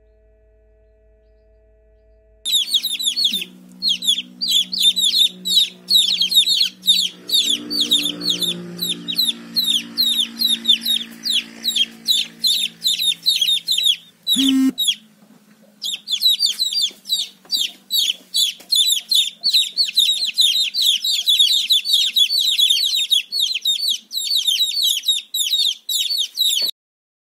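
Several young chicks peeping in rapid, continuous high chirps, each peep sliding down in pitch. The peeping starts about two seconds in, breaks off briefly around the middle, and cuts off just before the end.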